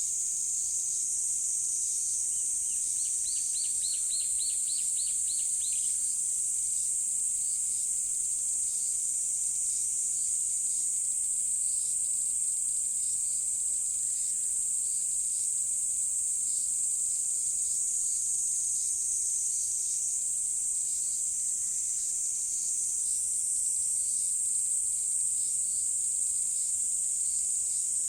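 Steady high-pitched chorus of calling insects, with a bird giving a short trill of quick repeated notes about three seconds in.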